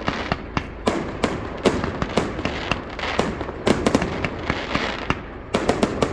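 Fireworks display: a rapid, irregular string of bangs and crackles over a steady rumble, with a quick burst of several bangs in a row near the end.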